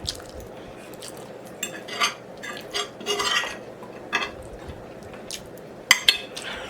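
Cutlery and dishes clinking and scraping: a handful of scattered short clicks, with the sharpest pair about six seconds in.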